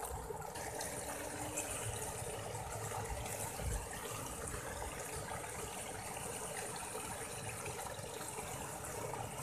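Small stream of water running and splashing steadily into a shallow, weedy pool.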